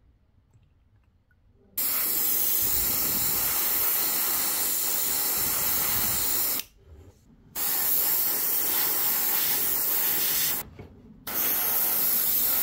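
Gravity-feed airbrush spraying paint: a loud, even hiss in three long bursts, the first starting about two seconds in, each cut off sharply as the trigger is released.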